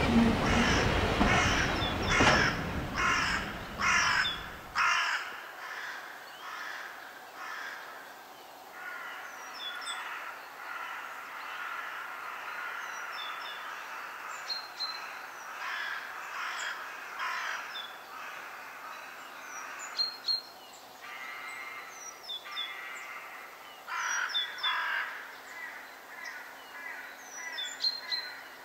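A train's running noise stops abruptly about five seconds in. After that comes outdoor bird ambience: runs of repeated calls and short high chirps over a steady hiss.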